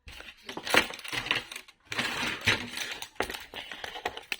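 Small hard puzzle pieces clicking, clinking and rattling against each other as a house puzzle is taken apart, in a quick irregular run of sharp knocks.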